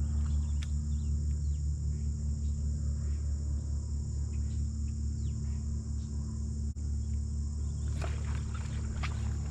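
A boat motor runs at a steady low hum, with a steady high insect-like buzz and small birds chirping over it. Some clatter comes near the end.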